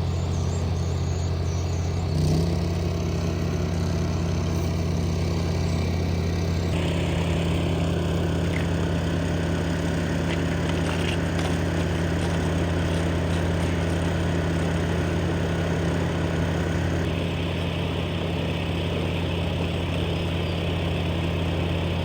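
An engine idling steadily with a low, even drone, and a brief knock about two seconds in.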